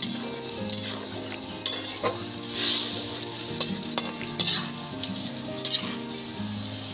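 Spice paste with mustard, tomato and turmeric sizzling in hot oil in a metal kadai while a flat metal spatula stirs it. The spatula clicks and scrapes against the pan several times, and the sizzle surges louder now and then. This is the kosha stage, where the masala is fried down until the oil separates.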